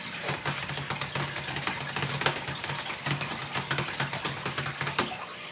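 Laptop keyboard being typed on: quick, irregular key clicks over a steady low hum.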